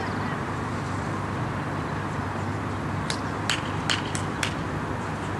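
Five sharp taps in quick succession about three seconds in: a tennis ball being bounced on the hard court. Steady traffic hum underneath.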